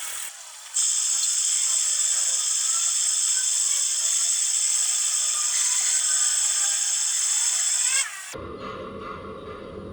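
Metalworking power tool running with a steady high-pitched whine and hiss, starting about a second in and cutting off near the end. It is followed by a quieter, lower machine hum.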